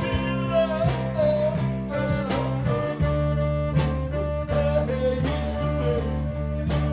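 A band playing an instrumental passage: steady bass, evenly spaced drum hits and a lead line that bends up and down in pitch, with a change in the bass notes about three seconds in.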